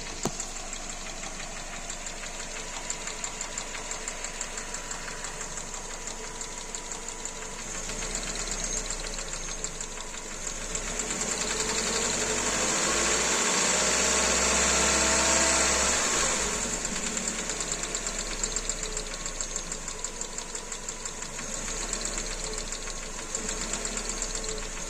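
Kia Rio 2's G4EE four-cylinder petrol engine idling with a fast, regular knock. It is revved once, rising from about eleven seconds in and falling back to idle about five seconds later.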